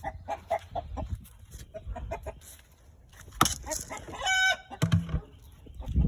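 Chickens clucking in short, scattered calls as they eat freshly scooped feed, with one clear, high call from a bird about four seconds in.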